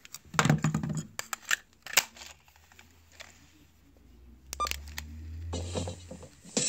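Plastic clicks and knocks from handling a Panasonic RQ-SX52 cassette Walkman, with the cassette door shut and the player turned over, then a quick run of button clicks about four and a half seconds in. A low hum swells after that, and tape playback starts faintly through the small speakers near the end.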